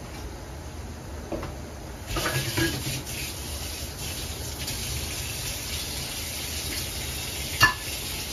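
Pork frying in oil in a covered pot, a steady sizzle that comes up about two seconds in, with crackles as it starts and one sharp pop of fat near the end.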